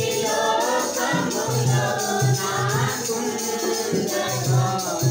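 A congregation singing a Telugu Christian worship song together, with a tambourine jingling and a steady low beat.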